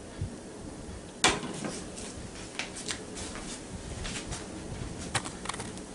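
Hot bacon grease crackling in a square nonstick pan, with scattered light pops. One sharp knock comes a little over a second in.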